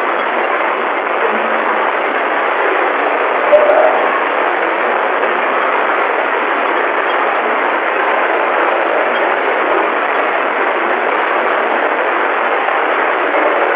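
Loud steady static hiss from an old phone's faulty microphone, with one brief scratchy click about three and a half seconds in.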